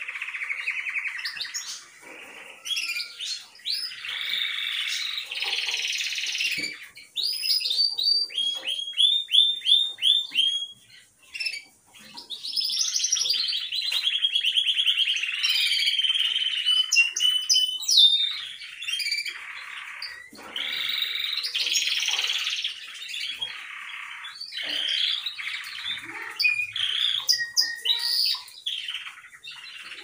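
Caged canary singing: long phrases of chirps and fast trills, with a couple of brief pauses.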